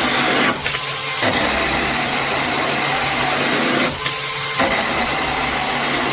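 A Tomyvic 21 V cordless mini chainsaw, a small brushed electric motor driving a micro chain, running flat out and cutting through a 2x4. It gives a loud, steady whine, and the sound changes briefly twice, about half a second in and again about four seconds in.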